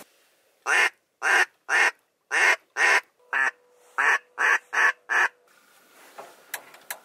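About ten loud, short duck quacks in a row, the last four coming a little quicker.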